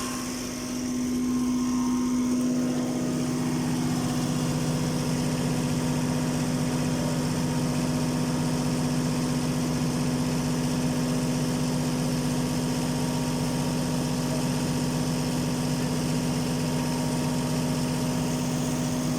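Perkins 1103A-33T three-cylinder turbocharged diesel genset engine running steadily, its level rising slightly about a second in and then holding an even note.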